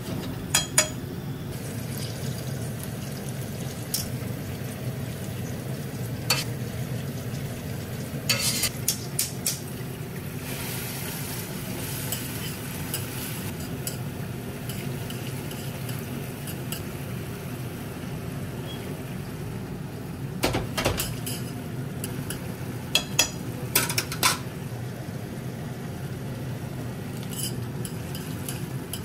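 Metal tongs clicking and scraping against a stainless steel frying pan while spaghetti is tossed in garlic and olive oil over a soft sizzle. The clicks come in scattered clusters over a steady low hum.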